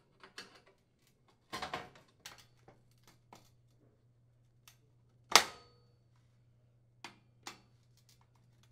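Scattered light metal clicks and scrapes of a flathead screwdriver working a range's baking drawer loose from the notches on its steel slide rails, with one sharp, much louder click about halfway through.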